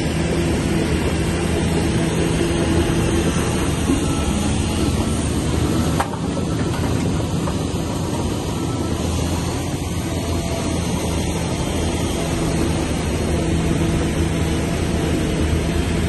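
Heavy earth-moving machinery's diesel engine running steadily under load, with a brief break and drop in level about six seconds in.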